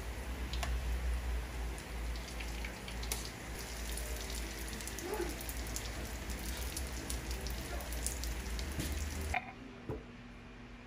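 Turon (banana spring rolls) sizzling and crackling as they deep-fry in hot oil in a wok, with occasional sharp clicks. About nine seconds in it cuts off suddenly to a much quieter background.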